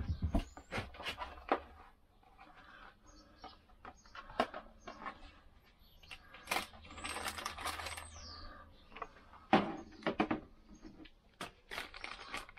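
Irregular small clicks, knocks and clatter as digital calipers are taken out of their case and handled, with a short stretch of rustling or scraping about halfway through.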